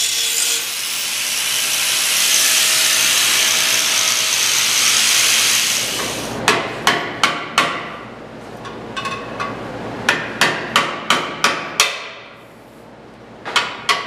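Hand tool work on a steel frame: a steady rushing noise for about six seconds, then sharp metallic knocks, about three a second, in two runs with a short pause between.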